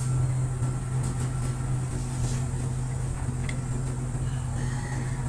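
A steady low machine hum, with a few faint clicks of small carburetor parts being handled.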